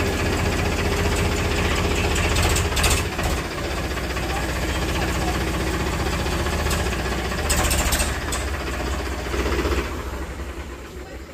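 An engine running steadily at idle, with a couple of brief clatters; the engine sound drops away near the end.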